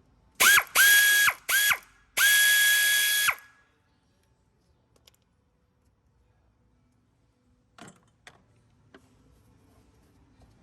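A small power tool motor run in four short bursts, the last and longest a little over a second. Each burst spins up to one steady high whine and winds down in pitch when released. A few light clicks follow several seconds later.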